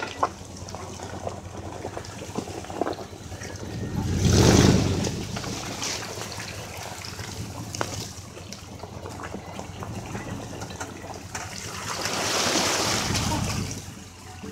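Lifted 1998 Chevy Z71 pickup's engine running through its dual exhaust as its mud tires churn and splash through muddy water, with two loud surges of engine and splashing, about four seconds in and again near the end.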